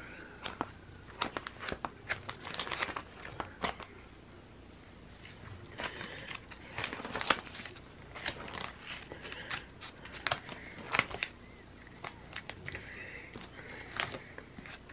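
Clear plastic sheet protectors in a ring binder crinkling and crackling as sticker-sheet pages are flipped through, with irregular sharp clicks.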